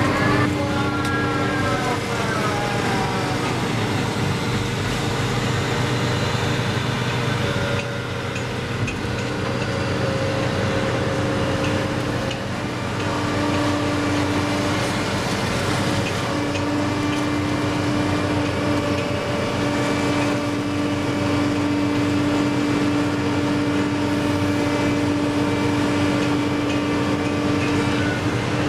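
Dredging crane's engine and hydraulics running steadily, heard from inside the operator's cab while it works a clay clamshell grab, with a steady hum and a whine that bends in pitch in the first couple of seconds.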